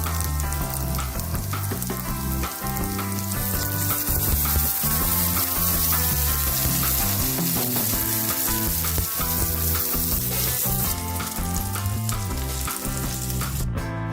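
Food sizzling as it fries in a pan, a steady crackling hiss, under background music with a moving bass line.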